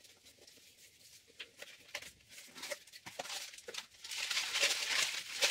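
A small cardboard box is handled and opened with a few light clicks and taps. About four seconds in, the crinkling rustle of white wrapping paper starts as a small wrapped item is unwrapped.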